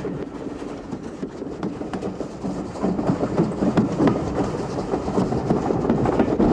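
Steam-hauled train running, its wheels clicking over the rail joints, getting somewhat louder about halfway through.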